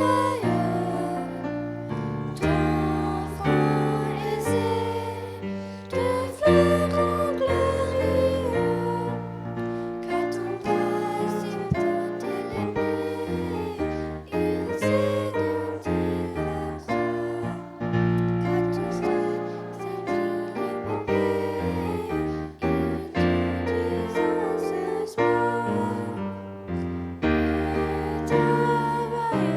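Two young singers singing a song with piano accompaniment.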